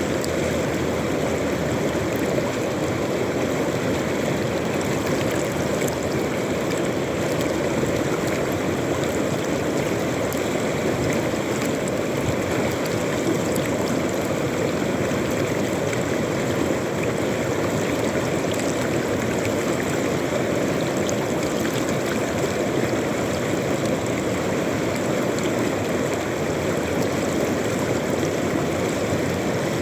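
River water flowing steadily over stones, a constant rushing.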